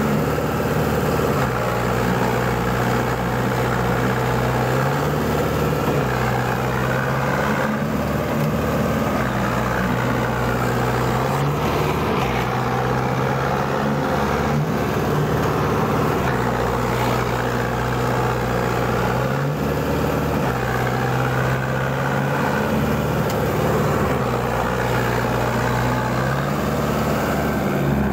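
Compact 4WD tractor's diesel engine running hard, its pitch stepping up and down every couple of seconds as it is worked with a front wheel bogged in deep paddy-field mud. The engine slows near the end.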